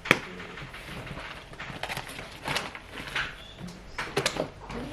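A sharp knock, then scattered light clicks and rustles of paper items being handled.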